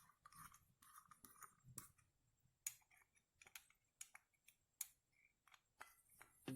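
Faint, irregular clicks and taps of a screwdriver and small metal parts being handled while a motorcycle carburetor is taken apart.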